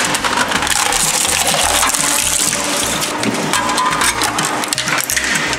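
Industrial shaft shredder's steel cutter discs chewing up a slim PlayStation 2 console: its plastic casing cracks and crunches in a dense, loud crackle that eases off near the end.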